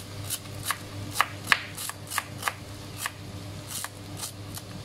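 Kitchen knife chopping fresh coriander on a plastic cutting board: a run of sharp taps of the blade on the board, a little over two a second and slightly uneven, over a steady low hum.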